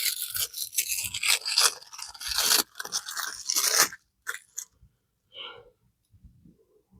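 Statue packaging being handled and unwrapped: about four seconds of dense, irregular crinkling and scraping, then a few light clicks and knocks.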